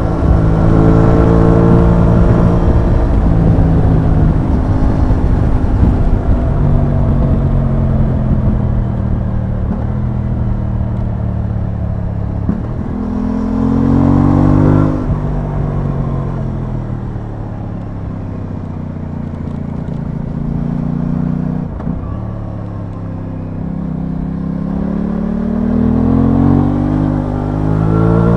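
Aprilia Tuono 660's parallel-twin engine running on the move, with a low rush of wind over the microphone. The revs climb around halfway and drop away sharply, then climb again over the last few seconds.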